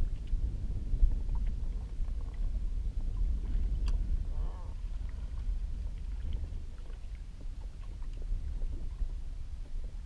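Steady low rumble of wind and small waves around a kayak on open sea, with a faint tick about four seconds in.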